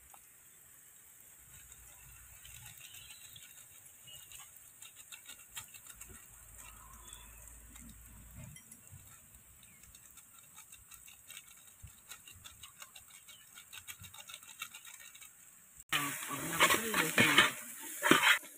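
Faint clicks and scraping of a metal ladle stirring fried vegetables in a large aluminium pot, with masala sachets being emptied in. A loud voice starts near the end.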